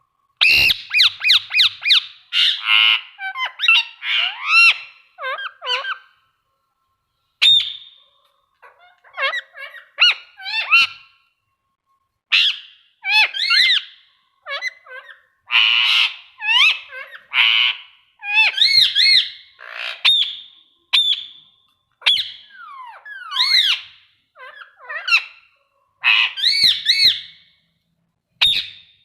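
Indian ringneck parakeet calling: loud squawks and gliding whistled calls in quick bursts, broken by a couple of short pauses.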